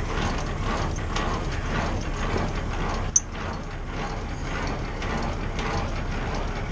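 Semi-trailer landing gear being cranked up by hand, the crank turning the gearbox with a steady run of clicking and ratcheting. One sharp clack comes about three seconds in.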